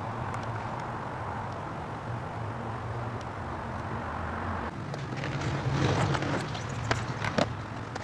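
Steady low outdoor hum; from about five seconds in, paper crinkling with a few sharp clicks as the backing paper of rubber sealing tape is handled.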